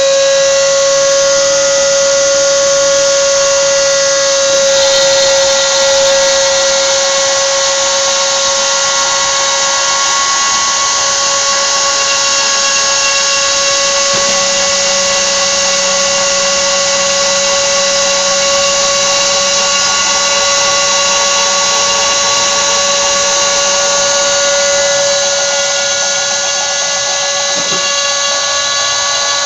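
Rotary tool mounted as the spindle of a homemade CNC router, spinning at high speed and cutting a line into a clamped red plastic sheet: a steady high-pitched whine that holds its pitch throughout.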